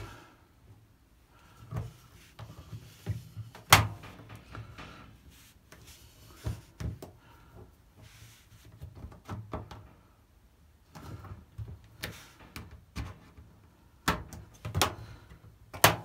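A metal retaining band being worked into the groove of a washing machine's rubber door seal by hand: scattered clicks, taps and light knocks of metal against rubber and the machine's front panel, with a sharp knock about four seconds in and several more near the end.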